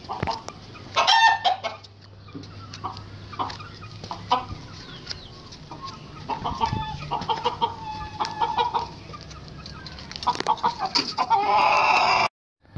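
A hen clucking in repeated bursts while carried in a toddler's arms, loudest about a second in and again near the end, then cut off abruptly.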